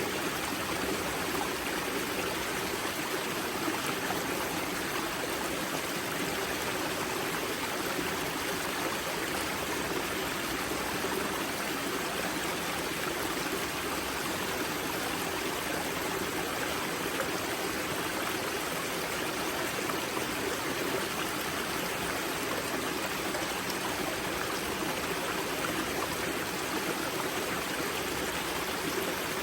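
Water of a river's spring source rushing and splashing steadily over rocks, an unbroken, even stream sound.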